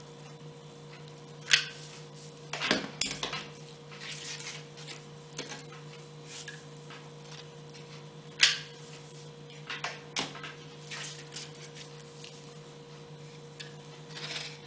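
Hot glue gun and batting being handled on a tile counter: a few sharp clacks of hard plastic, the loudest about a second and a half in and two more past the middle, with a brief rustle and soft knocks while the polyester batting is pressed down. A faint steady hum runs underneath.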